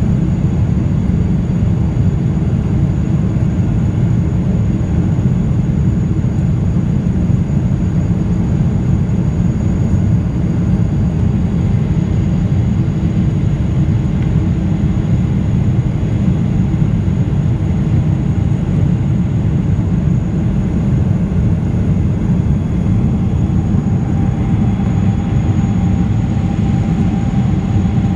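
Steady engine noise of a Boeing 777-300ER's GE90-115B turbofans heard inside the cabin while airborne after take-off, mostly a deep, even rumble with a faint high whine above it. A faint steady hum joins in near the end.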